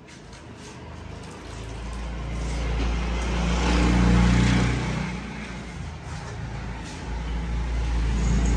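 Motor vehicle engine passing close by on a street. Its rumble swells to a peak about four seconds in, eases off, and a second engine sound builds near the end.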